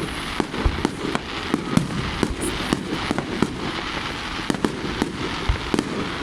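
Fireworks display going off: an irregular string of sharp bangs and pops, several a second, over a constant noisy background, with a few deeper booms standing out.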